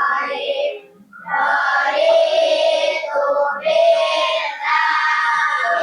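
A class of schoolchildren reciting a prayer aloud together in unison, in a drawn-out chant of long held phrases, with a short pause about a second in.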